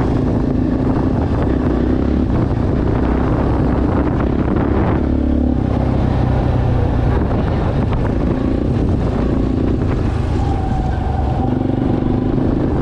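ATV engine running, with a rough noisy haze over a steady engine note; the engine note shifts about five seconds in and again near the end.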